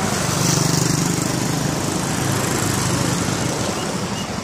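A small engine running close by, a steady buzz that is loudest over the first three seconds and then fades, over street traffic noise.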